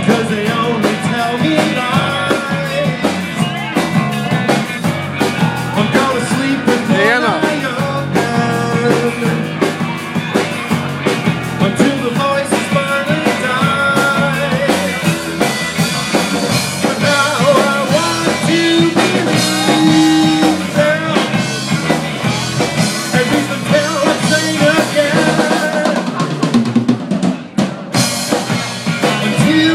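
Live rock band playing, with electric guitars and a drum kit.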